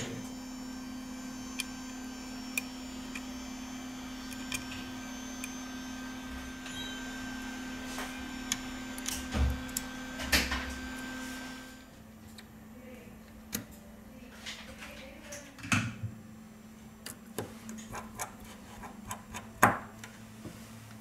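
Scattered light clicks and taps of tweezers, fingers and a small screwdriver handling phone parts: a flex cable being pressed into an iPhone 6 housing. Under them runs a steady low electrical hum that drops away about twelve seconds in, and there is a sharper click near the end.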